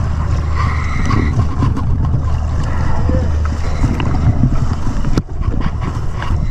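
Dive boat's engine running with a steady low hum, under a haze of wind and water noise; the sound drops out briefly about five seconds in.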